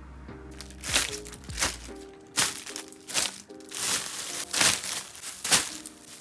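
Plastic packaging crinkling and crushing in a run of separate handfuls, about eight of them, loudest above soft lo-fi background music with a gentle melody.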